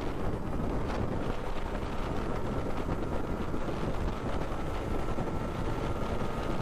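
Yamaha RX 135's two-stroke single-cylinder engine running steadily at highway cruising speed, with wind rushing over the microphone.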